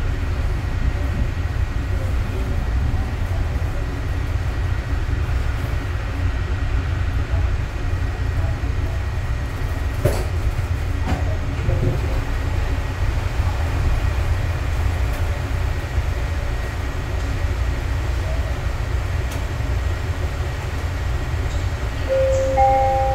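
Cabin noise of a Yongin EverLine light-rail car at a station: a steady low rumble with a couple of faint clicks. Near the end a chime of three tones steps upward.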